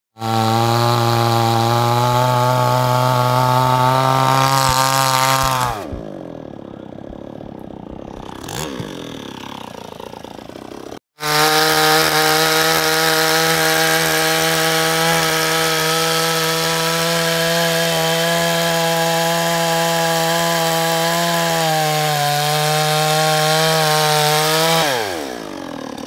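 Two-stroke chainsaw running at full throttle as it cuts into a log. Partway through it drops to a quieter idle with one short rev, then runs at full throttle again, its pitch sagging slightly under load. It winds down with a falling tone near the end.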